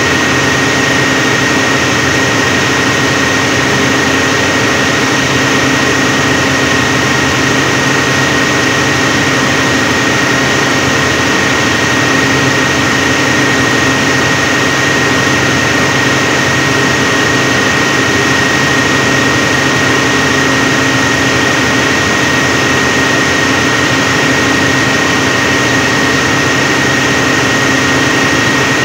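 SDMO generator set running steadily at its rated 1500 rpm with no load on it, a loud even engine drone with a thin steady high whine over it.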